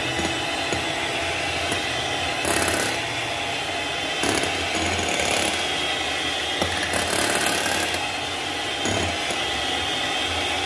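Electric hand mixer running steadily, its twin beaters whipping cream and condensed milk in a glass bowl, with a few brief louder patches along the way.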